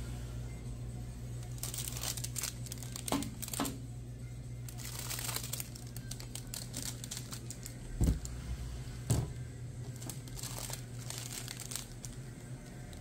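Plastic wrappers of ice cream bars crinkling as the bars are rummaged through and pulled out of a chest freezer, with two dull thuds about eight and nine seconds in, over a steady low hum.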